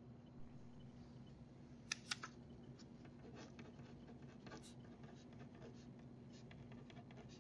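Ballpoint pen writing on paper: a run of faint, short, scratchy strokes. Two sharp clicks about two seconds in are the loudest sounds.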